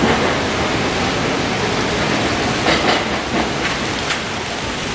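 A steady rushing noise, with a few faint short sounds about three and four seconds in.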